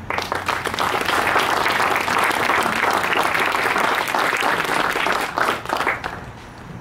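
Audience applauding, a dense spread of many hands clapping that thins out and stops near the end.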